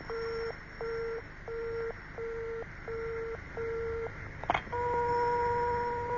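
Telephone receiver sounding six short beeps of a busy tone, the sign that the other party has hung up. A sharp click follows, then a steady continuous dial tone.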